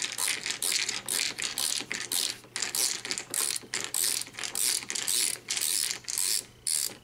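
Ratcheting screwdriver with a 7/32 socket backing out a door-panel retaining bolt: quick runs of ratchet clicking on each back-swing, about three strokes a second.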